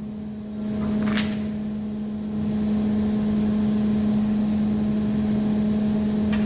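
A steady low mechanical hum with a rumble beneath it. A brief rustle about a second in as the phone camera is handled and set down.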